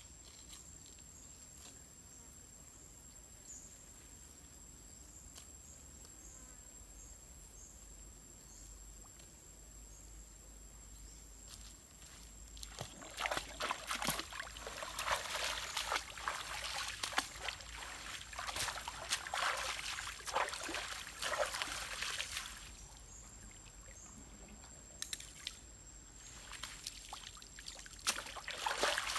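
Shallow stream water splashing and sloshing as a person wades in and pushes a collapsible umbrella fish-trap net down into it. The splashing comes in irregular bursts, starting about halfway through, easing off, then picking up again near the end. Before it, only a faint steady hiss with a thin high whine.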